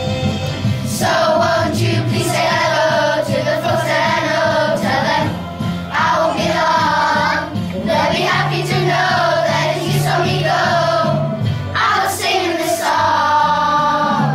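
Children's choir singing over instrumental accompaniment, the voices coming in about a second in.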